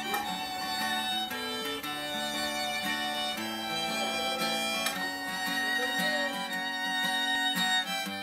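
Fiddle and guitar playing a tune, the fiddle holding and sliding between notes over the guitar's plucked accompaniment.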